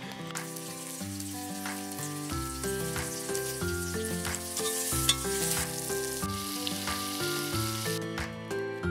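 Onions, garlic and tomatoes sizzling as they fry in a pressure-cooker pot over a wood fire, with a ladle stirring them; the sizzle stops near the end. Background music with a stepping melody plays throughout.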